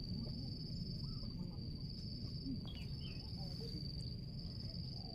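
An insect trilling continuously on one steady high pitch, over a low background rumble.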